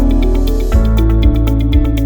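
Upbeat electronic background music with a steady beat: a bass line, synth chords and regular hi-hat ticks.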